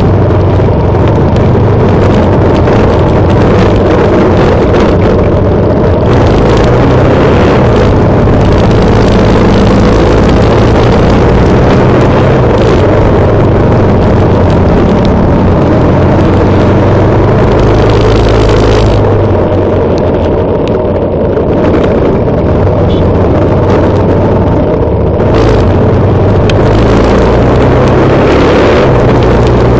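A motorcycle engine runs steadily at road speed, with wind rushing over the microphone. The wind noise eases for a few seconds past the middle.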